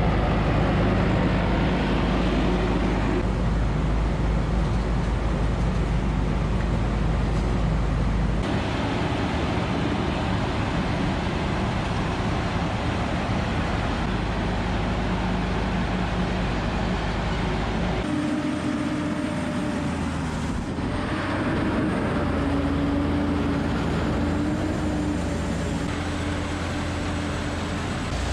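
Heavy diesel farm machinery running steadily during silage harvesting. Its sound changes abruptly twice, about a third and about two-thirds of the way through.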